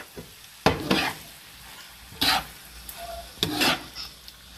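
Slotted spatula stirring and scraping ground meat, diced peppers and tomato sauce around a nonstick frying pan, three strokes about a second apart, with the food sizzling quietly in between.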